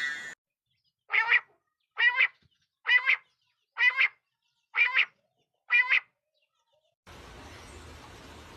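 A bird calling six times in an even series, a short nasal double-note call about every 0.8 seconds. A steady hum comes in near the end.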